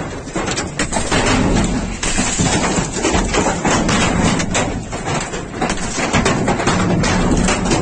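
Heavy hail pelting down: a dense, constant clatter of many hard hailstone impacts over a wash of noise.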